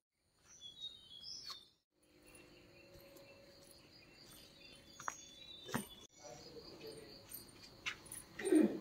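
Faint morning outdoor ambience: insects chirping steadily, with a few bird chirps near the start and a few soft clicks.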